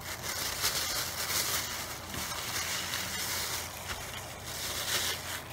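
Plastic packaging crinkling and rustling as it is handled by hand, a dense, uneven crackle of many small crinkles.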